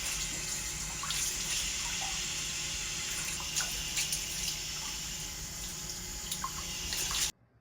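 Tap water running steadily into a sink, with small splashes as hair is washed under it. The sound stops abruptly near the end.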